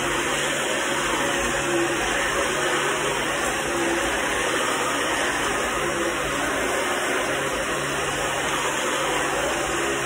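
Dyson upright ball vacuum cleaner running steadily, a continuous motor whir with rushing suction as it is pushed back and forth over carpet.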